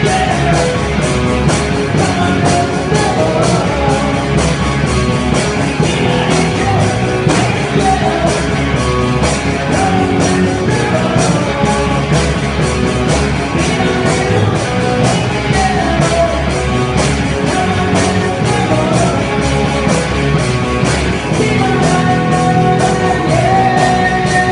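A rock band playing live: drum kit with steadily struck cymbals driving the beat under amplified electric guitars. Loud and continuous.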